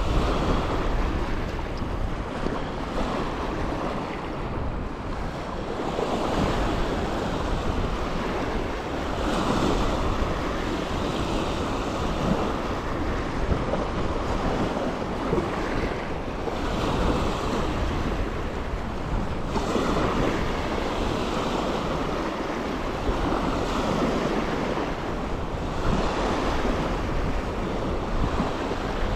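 Strong wind buffeting the microphone with a deep rumble, swelling and easing every few seconds, over waves washing on the lake shore in a windstorm.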